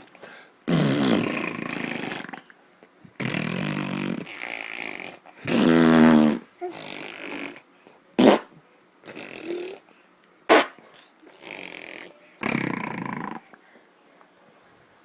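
A baby making a string of fart sounds: about nine buzzy, pitched bursts, each lasting from a fraction of a second to about two seconds, with two short sharp ones near the middle.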